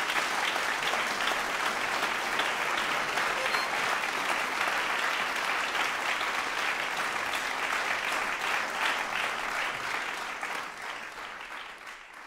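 Audience applauding steadily, the clapping thinning and fading out over the last two seconds.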